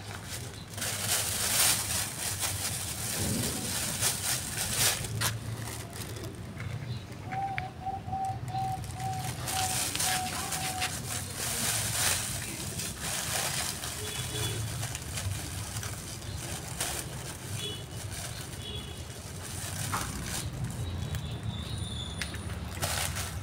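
A cat hissing in several short bursts, a defensive warning at another cat. In the background a bird calls a run of about eight short, even notes, with a few high chirps later.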